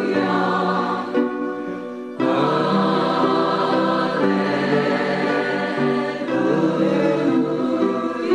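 Choral music: sustained voices holding long chords. A little over two seconds in it changes abruptly to a new, fuller passage.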